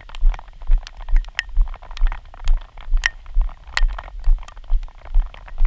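Bicycle ride in the rain heard from a helmet-mounted GoPro: a steady low thudding about twice a second, in step with the pedalling, under scattered sharp ticks of raindrops hitting the camera and the rider's plastic trash-bag rain cape.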